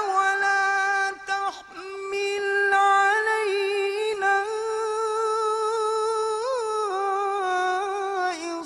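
A man reciting the Quran in the melodic tajweed style, holding long drawn-out notes with ornamented turns. There is a brief break for breath about a second in and another near the end.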